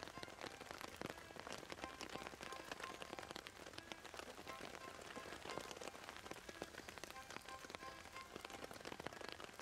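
Heavy rain pattering steadily, a dense crackle of countless drops.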